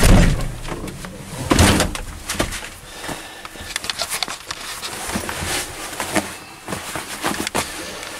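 Thumps, knocks and rustling as someone climbs into a Caterpillar 329E L excavator cab and settles into the seat: two heavy thumps, one at the start and one about a second and a half in, then scattered small knocks and clicks.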